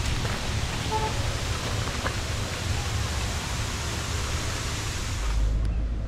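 Steady outdoor noise of a walk along a trail: an even hiss over a low wind rumble on the camera microphone. Near the end the hiss drops away and the low rumble grows stronger.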